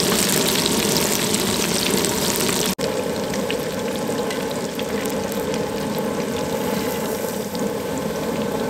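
Battered paddlefish fillets deep-frying in oil at about 350 degrees: a steady sizzle with small crackling pops. The sound breaks off for an instant about three seconds in, then the frying continues a little quieter.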